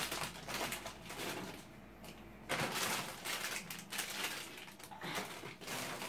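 Crinkling of a plastic carrier bag and frozen food packages being handled in a freezer drawer, irregular rustles and small clicks with a short lull about two seconds in.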